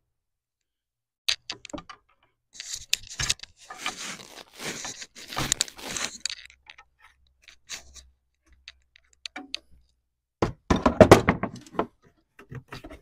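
Hand-work noises on a rubber coolant hose in an engine bay: scattered clicks, a few seconds of rubbing and scraping, then a louder run of clattering knocks near the end.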